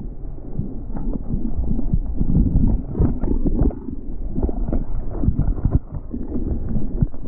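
A barreling wave breaking around a GoPro, heard from inside the tube: a muffled, low rush of churning whitewater with irregular thumps as water slaps against the camera housing.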